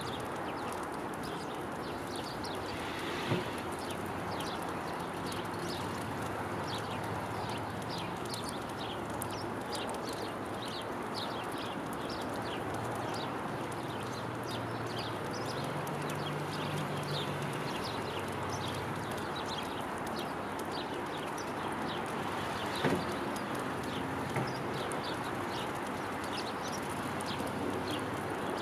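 Small wild birds chirping, many short high calls repeated over a steady outdoor background rush, with a couple of brief sharp taps a few seconds in and again about two-thirds through.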